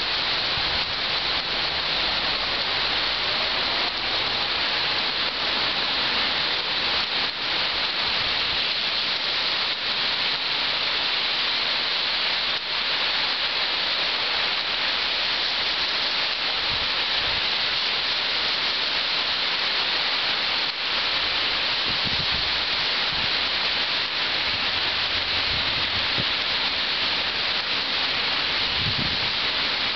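Heavy rain falling steadily, a dense even hiss of drops on the ground, leaves and paving.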